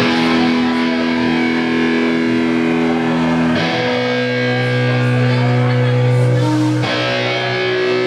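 Live ska band playing, led by distorted electric guitar holding long sustained chords that change about three and a half seconds in and again near seven seconds.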